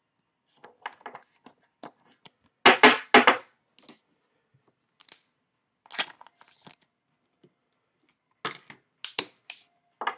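Trading cards and plastic card holders being handled on a desk: a string of short crinkling, scraping and tapping noises, the loudest a pair about three seconds in.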